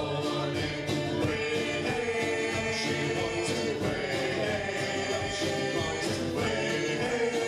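Live band music: acoustic guitars and other strummed string instruments over a steady drumbeat, with several voices singing together.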